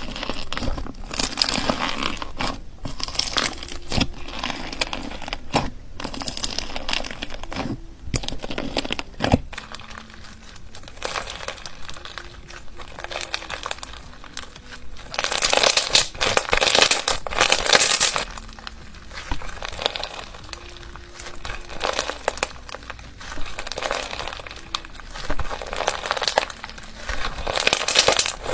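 Foam-bead slime being squeezed and stretched by hand: dense crackling and sticky popping as the beads and slime press together. The crackling gets louder about halfway through and again near the end.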